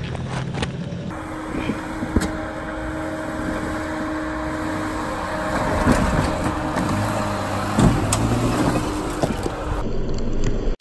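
4WD engines working slowly up a rocky track. It starts briefly with the Toyota Prado's 3.0-litre turbo-diesel. About a second in it changes to a Jeep Wrangler Rubicon's 3.6-litre petrol engine, with tyres crunching over loose rock and a few sharp knocks of stone.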